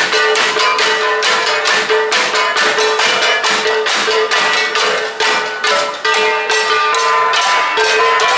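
Cordillera flat gongs (gangsa) played as an ensemble: quick, steady strikes, several a second, with metallic ringing tones that carry over from beat to beat.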